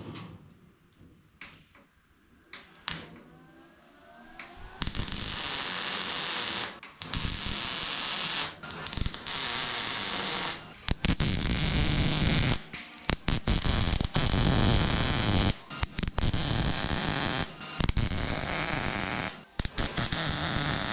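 Millermatic 211 MIG welder running .030 wire, laying a series of plug welds through punched holes to join a new steel roof skin. A steady crackle comes in runs of one to two seconds with short breaks between welds, starting about five seconds in after a few light clicks.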